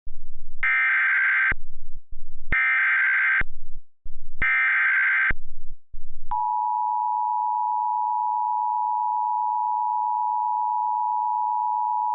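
Emergency Alert System tones: three short bursts of SAME digital header data, then about six seconds in the steady two-tone EAS attention signal begins and holds. The sequence opens a severe thunderstorm warning.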